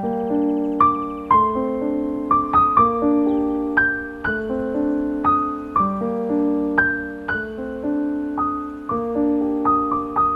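Background piano music: a gentle melody of single notes struck about twice a second, each fading away.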